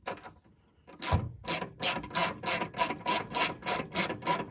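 Small hand ratchet clicking as it tightens a 7 mm screw, after a knock about a second in, with about three clicking strokes a second.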